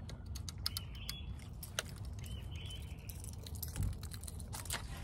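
Irregular sharp clicks and ticks from a baitcasting reel and rod as a glide swimbait is reeled in and lifted from the water, over a steady low rumble.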